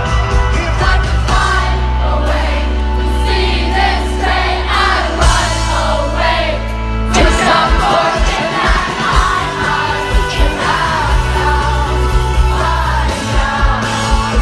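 Live rock band playing, with singing over a steady bass line.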